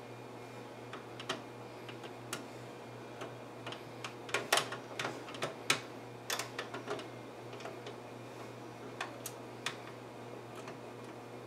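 Flat-blade screwdriver and slotted screw clicking and scraping against the steel computer case and card bracket while the screw misses its hole: scattered light clicks, with a burst of louder ones in the middle.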